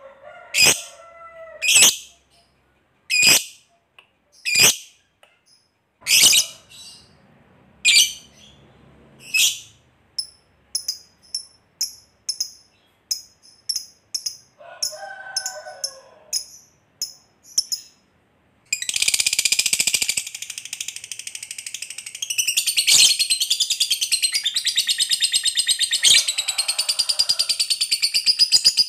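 Fischer's lovebird calling: sharp single high chirps about every second and a half, then a run of quicker, shorter chirps. From about two-thirds of the way through comes one long unbroken rapid chatter, the long 'ngekek' trill that lovebird keepers prize.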